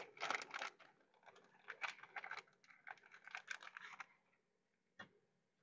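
Plastic zip-top bag crinkling as a hand digs into it, in short irregular crackles for about four seconds, then a single light click near the end.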